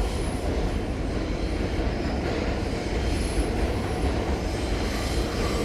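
An unseen train running past, a steady low rumble, with a brief faint high squeal about three seconds in.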